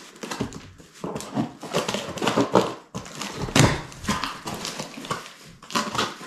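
Cardboard shipping box being opened by hand: packing tape pulled and torn, flaps pulled back, a run of irregular scrapes, rustles and knocks, the sharpest about three and a half seconds in.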